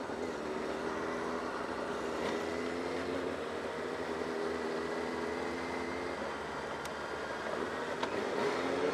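Yamaha FZ6 S2's inline-four engine running at a steady riding pace over wind and road rush. The engine note fades after about six seconds and climbs again near the end as the bike pulls away.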